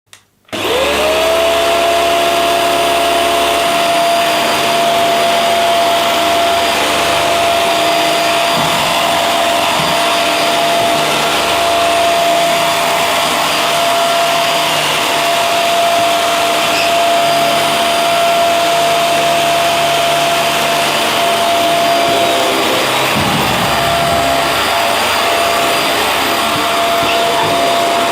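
Vacuum cleaner switched on, its motor whining up to speed within about a second, then running steadily with a constant high whine over a loud rushing noise.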